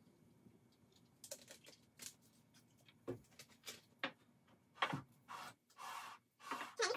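Light clicks and taps of plastic soda bottles and small cups being handled and set down on a kitchen countertop. A sharper knock comes about five seconds in, followed by a few short scrapes near the end as the cups are slid around.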